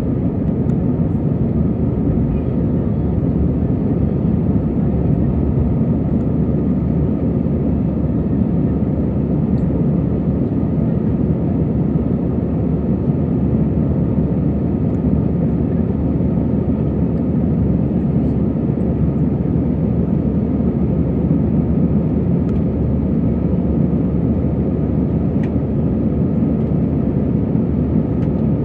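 Steady engine and airflow noise inside the cabin of an Airbus A320 climbing out after take-off: an even, low rumble that does not change.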